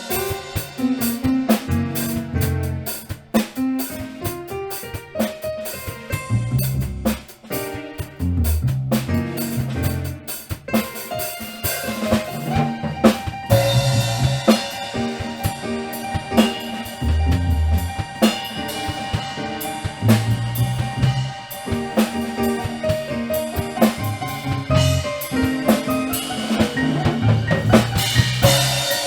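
Music with a drum kit playing a beat (snare and bass drum) over pitched instruments: low bass notes and some long held melodic tones.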